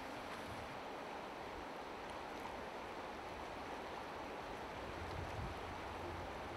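Steady rush of a shallow, clear river running over stones, with low wind rumble on the microphone from about five seconds in.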